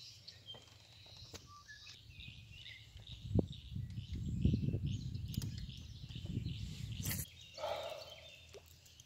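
Songbirds chirping faintly in the background, with a stretch of low, choppy rumbling noise for about four seconds in the middle, opened by a sharp click and ended by a short knock.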